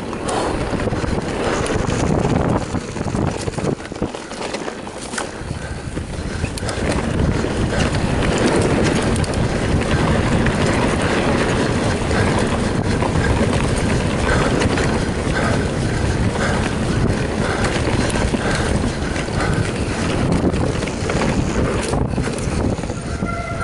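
Wind buffeting the camera microphone over a mountain bike's tyres running fast on a dirt and grass trail, with frequent short knocks and rattles from the bike over bumps.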